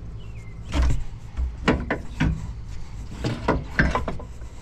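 Hand working at the AC compressor's electrical connector and its plastic safety clip: about ten sharp clicks and knocks in two clusters, over a steady low hum.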